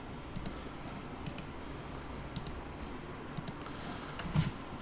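Computer mouse clicking, about five times at roughly one-second intervals, several of them quick double clicks, over a steady low background hum.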